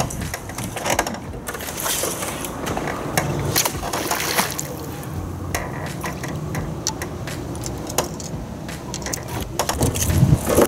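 Water lapping and sloshing against a small fishing boat's hull, with scattered sharp clicks and knocks.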